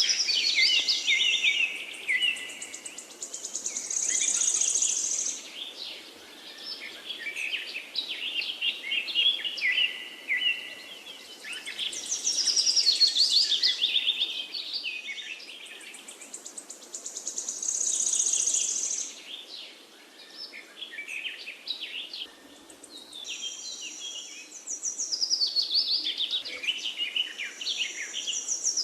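Songbirds singing, their quick chirping phrases overlapping, with a high buzzy trill that comes back every several seconds.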